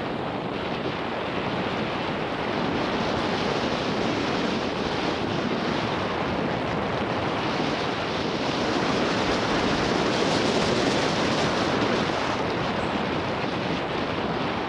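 Wind rushing over the microphone of a helmet-mounted Garmin VIRB 360 camera on a fast mountain-bike descent of a dirt forest trail, mixed with the rumble of the tyres on the trail. A steady rush that grows a little louder about nine seconds in, then eases near the end.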